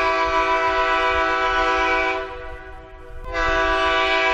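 Locomotive air horn sounding a steady chord in one long blast, the signal for stop, brakes on, which fades out about two seconds in. Another long blast starts about three seconds in, the first of the two-long signal to release the brakes and go ahead.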